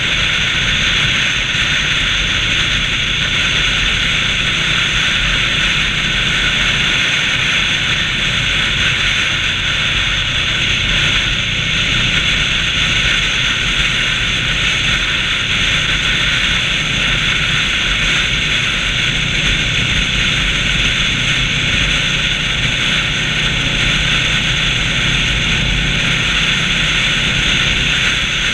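Cruiser motorcycle running steadily at highway speed: a low engine drone under loud, even wind rush on the handlebar-mounted camera's microphone.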